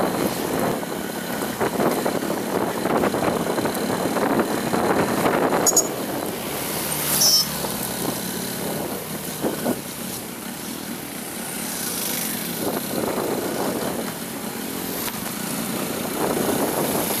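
Street traffic heard from a moving vehicle: engines running and road noise that swells and eases, with a brief high squeak about seven seconds in.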